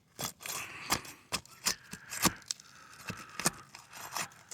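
Irregular sharp clicks, crackles and scraping as brittle roof shingles are pried loose and lifted, about ten sharp snaps in just over four seconds.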